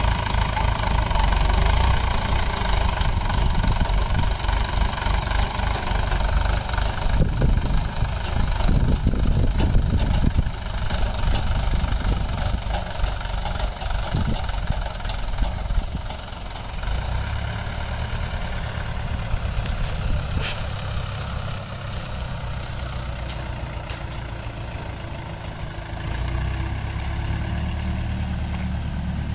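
Mahindra 575 DI tractor's four-cylinder diesel engine running while its hydraulic tipping trailer is raised to dump the load. The engine note turns rough and uneven for several seconds in the middle, then settles back to a steady run.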